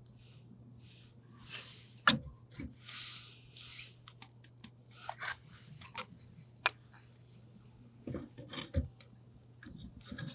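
Wood fire crackling and popping inside a titanium tent stove, with split wood knocking and scraping against the firebox as pieces are fed in. The sharpest knock comes about two seconds in, a brief hiss follows, and dull thumps come near the end.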